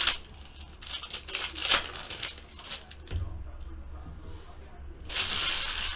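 A trading-card pack's wrapper being torn open and crumpled by hand: scattered short rustles, then a longer burst of crinkling near the end, over a low steady hum.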